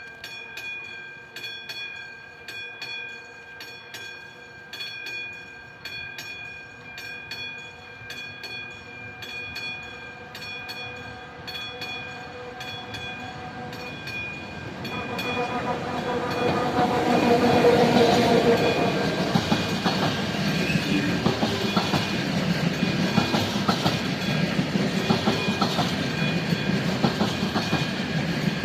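Level-crossing warning bell ringing with a regular strike over steady ringing tones. About halfway through, a train arrives and passes, its wheels clattering loudly over the rail joints.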